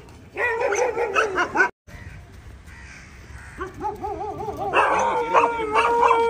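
Dogs whining and crying with high, wavering calls in two stretches, with a brief break between them. The second stretch ends in one long held cry.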